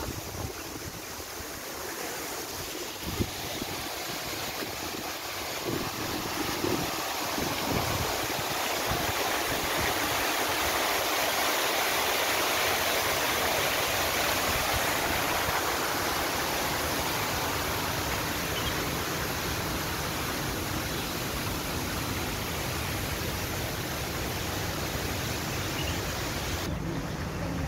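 Artificial waterfall pouring down a rock wall into a drain: a steady rushing of falling water that swells to its loudest about halfway through and eases off toward the end.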